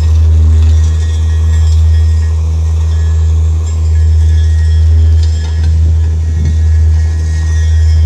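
RAILVAC FATRA 17000U rail vacuum machine running loud and steady: a deep engine drone with a faint high whine above it.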